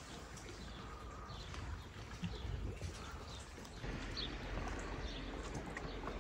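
Footsteps of a walker on an outdoor path, with a few faint bird chirps over a low outdoor rumble.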